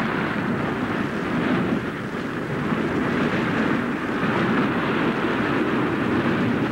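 Animated-film sound effect of churning, surging sea water as a landmass sinks beneath the waves: a steady rushing noise with no clear beats.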